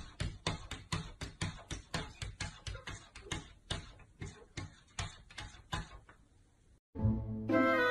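A cat's front paws tapping on window glass in a rapid, even run of knocks, about four or five a second, which stops about six seconds in. Music begins near the end.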